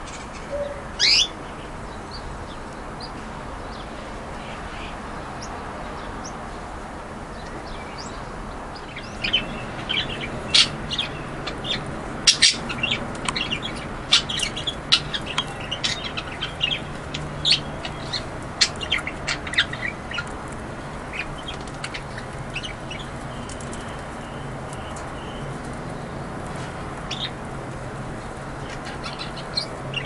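Small aviary birds, canaries and budgerigars, chirping. There is one call about a second in, then a run of quick, sharp chirps from about nine to twenty seconds in that thins out afterwards, over a steady low hum.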